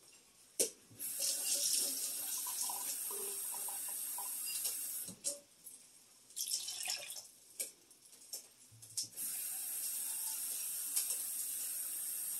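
Kitchen faucet running, filling an empty 10-ounce soup can with water: a steady stream for about four seconds, then again from about nine seconds in, with a few knocks and clatters in the pause between.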